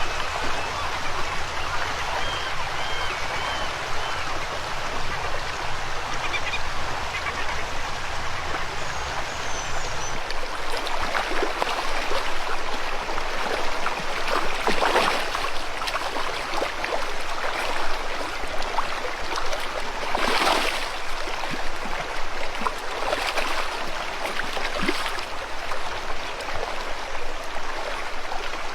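River water rushing steadily, with bird calls over it in the first few seconds and a few brief sharper calls or splashes in the second half.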